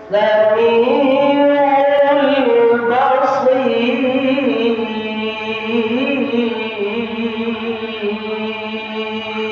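Male Quran recitation (tilawah) in a slow, melodic style: one long ornamented vocal line that moves up and down for the first few seconds, then settles into a long held note that slowly fades near the end.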